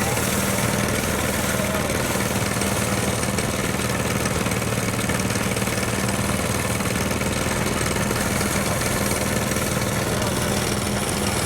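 Small engine running steadily at an even speed, driving a motorized rice thresher that strips the grain from the cut rice plants.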